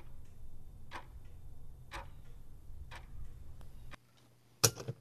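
Sharp ticks about once a second over a low hum, the hum stopping about four seconds in, then one loud sharp clack shortly before the end.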